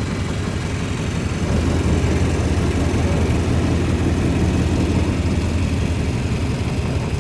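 A boat's engine running steadily as a low rumble, growing louder about one and a half seconds in and easing back near the end.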